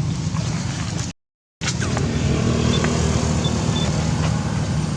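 A vehicle engine running steadily with a low rumble. The sound cuts out completely for about half a second a little after one second in.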